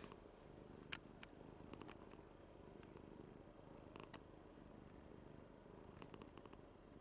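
Domestic cat purring softly and steadily, close up. A few faint clicks stand out, the sharpest about a second in.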